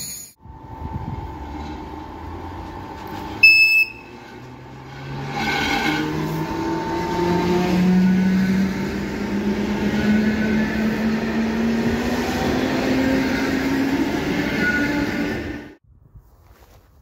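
Old electric multiple unit running, the whine of its traction motors rising slowly and steadily in pitch as it gathers speed; the sound cuts off suddenly near the end. A brief sharp sound stands out a few seconds in.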